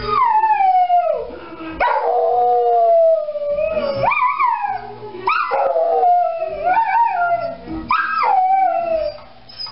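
A dog howling along to music: about five long howls, each starting high and sliding down in pitch.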